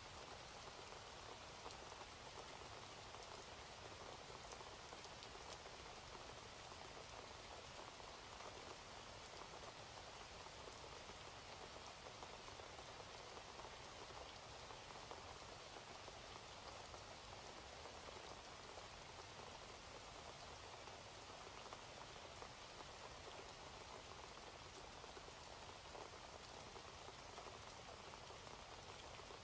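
Faint, steady rain, an even hiss with scattered drop ticks.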